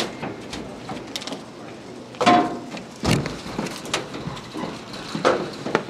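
Baseball game sounds: a short shout about two seconds in, then a sharp pop about a second later as a pitch lands in the catcher's mitt, and another short call near the end.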